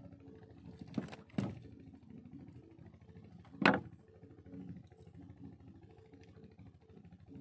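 Three sharp knocks inside a small boat as a fish and hand line are handled: one about a second in, a second half a second later, and the loudest a little past halfway. Under them runs a faint steady low hum.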